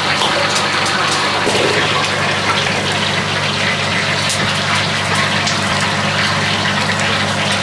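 Steady rushing noise of a street-food wok station, with a few faint clicks over a low steady hum.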